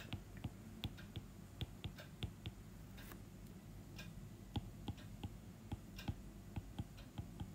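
Irregular light clicks and taps of a stylus on a pen tablet while equations are handwritten, a few per second, over a faint low steady hum.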